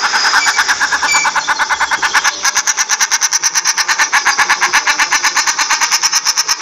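Common shelduck calling: a fast, unbroken cackling run of short calls, about ten a second, growing a little louder about two and a half seconds in.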